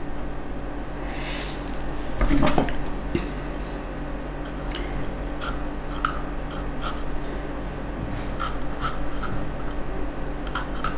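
Sharp kitchen knife carving into a raw red bell pepper: small crisp snicks and scrapes as the blade cuts through the pepper wall, with a knock on the wooden chopping board about two seconds in.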